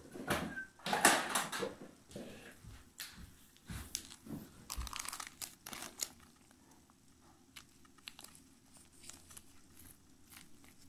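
Clear plastic zip-lock bag crinkling and crackling as it is handled. The crinkling is loudest in the first two seconds, then comes in scattered crackles that die away about six seconds in.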